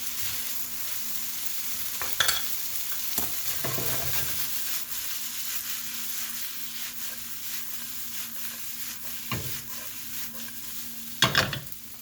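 Noodles stir-frying in a hot pan with garlic and sauce: a steady sizzle, with the utensil clacking against the pan a few times, loudest twice near the end.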